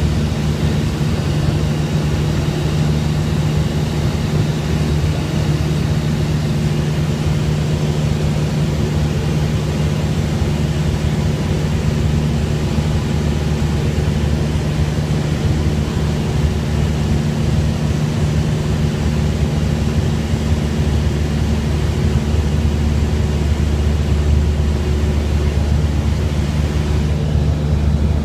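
Cabin drone of a 1998 Cessna 172R in flight, its four-cylinder Lycoming engine and propeller running at a steady, unchanging pitch, heard from inside the cockpit.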